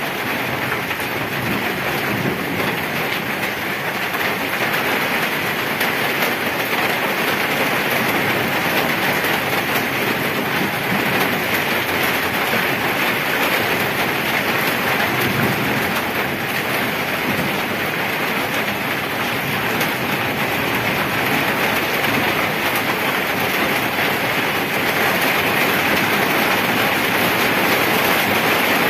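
Steady rain falling on wet pavement and puddles: an even hiss with no separate hits.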